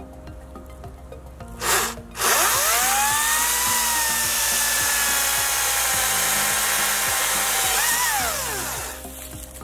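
Ryobi 40V brushless cordless chainsaw with a 14-inch bar cutting through a log. A short blip of the trigger comes about a second and a half in, then the electric motor whines up to speed and the chain saws through the wood, the pitch sagging slightly under load. Near the end the pitch rises again as the chain comes free of the cut, then the motor winds down.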